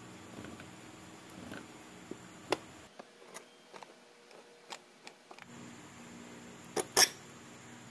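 Scattered light clicks and knocks of metal parts as a shock absorber strut and its coil spring are handled and worked on by hand, with a sharper knock about two and a half seconds in and two loud knocks close together near the end.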